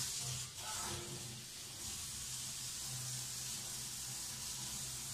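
Kitchen tap running into a sink: a steady hiss of water, with a low steady hum underneath.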